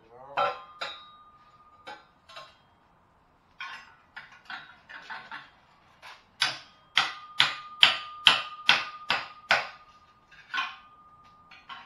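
Repeated sharp metal-on-metal strikes on the catalytic converter section of a Chrysler 300S exhaust pipe, a steel bar knocking out the converter's core to gut it. Each hit leaves the pipe ringing with a steady tone. The strikes come irregularly at first, then as a steady run of about two a second in the second half.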